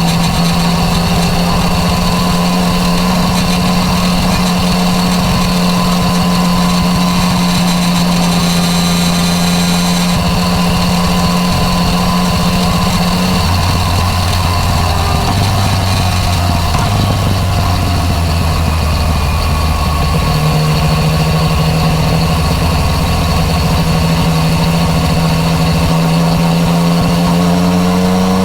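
Yamaha MT-09 Tracer's three-cylinder engine through an Akrapovic exhaust, heard from on the bike while riding at steady revs. The engine note drops about 13 seconds in, comes back up about 20 seconds in, and starts rising near the end as the bike accelerates.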